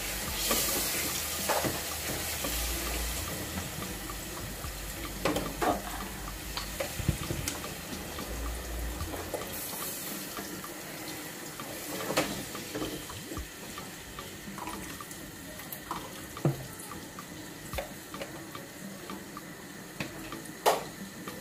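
Thick blended puree poured from a blender jug into a pot of tomato stew on the stove, with a steady hiss that is strongest at the start and a few sharp knocks against the pot.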